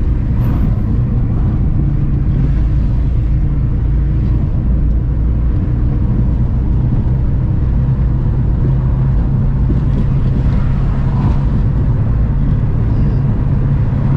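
Car driving along a road: a steady, unbroken rumble of engine and tyres.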